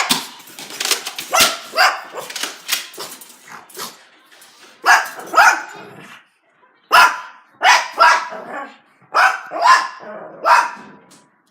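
A dog barking over and over, in clusters of short, sharp barks with brief pauses between them.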